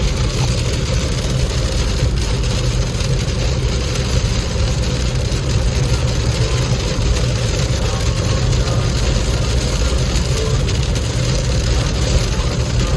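A car driving through a heavy downpour: a steady low engine and road rumble under an even hiss of rain on the car.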